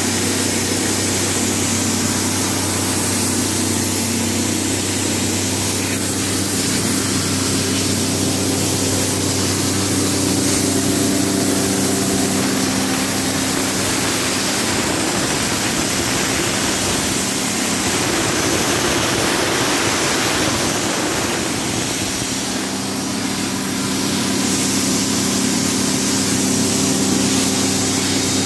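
A machine feeding a hose runs steadily under a constant loud hiss of spray from the hose nozzle as it is worked over a rebar deck. The hiss eases briefly about three quarters of the way through.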